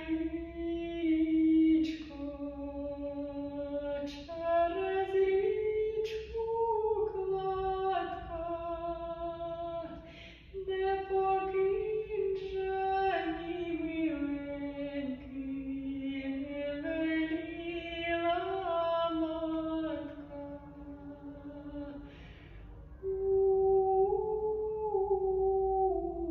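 A woman singing a Ukrainian folk song solo and unaccompanied, in slow phrases of long, held notes that glide between pitches. Short breaths come between the phrases.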